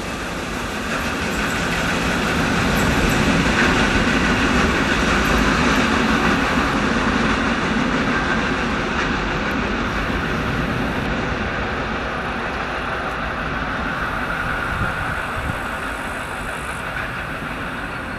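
Freight train of rail tank wagons rolling past on its wheels and rails, a steady rumble. It swells over the first few seconds, then fades slowly as the end of the train draws away.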